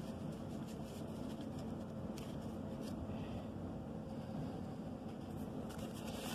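Quiet room tone: a steady low hum with a few faint ticks and rustles.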